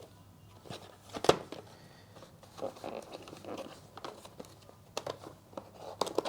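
Plastic wrap crinkling and the product box being handled, with scattered clicks and one sharp snap about a second in.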